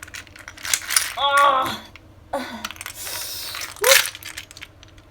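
Small hard plastic toy pieces clicking and clattering under bare feet as they are stepped on, with a few short pained vocal sounds in between.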